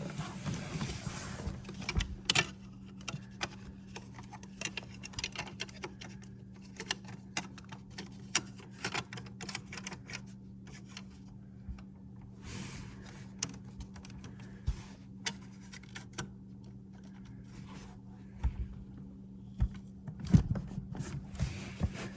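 Rapid, irregular clicks and clatter of hand tools and metal parts being handled, with a few short bursts of rustling, over a steady low hum.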